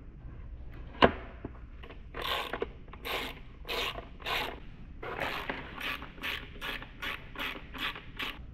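Socket ratchet wrench on a long extension being worked back and forth, its pawl clicking in a short burst on each stroke, about a dozen strokes at a little under two a second. A single sharp click about a second in is the loudest sound.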